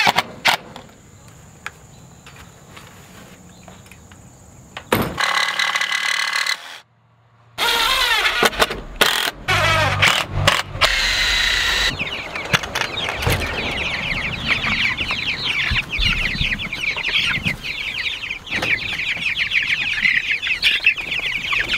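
Young Cornish cross broiler chickens peep and cluck in a dense, steady chorus through the second half. Before that, a cordless drill/driver runs in short bursts.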